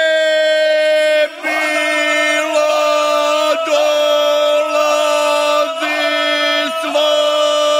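Ganga, the traditional polyphonic folk singing of the Imotski region: a small group of voices singing loudly, holding long notes in close harmony, with brief breaks and slides between notes every second or two.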